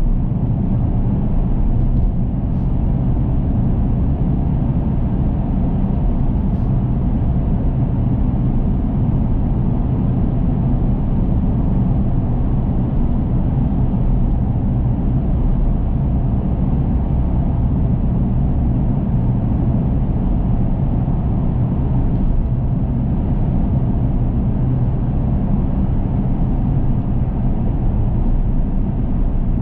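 Steady low rumble of a car driving at speed through a road tunnel: tyre and engine noise with a constant low hum.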